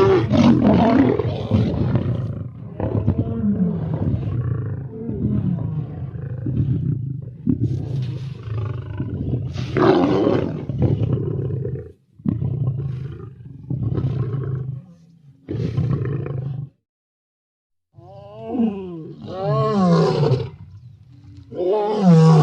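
Lion growling in long, rough low rumbles with short breaks between them, then two shorter moaning calls that rise and fall in pitch near the end.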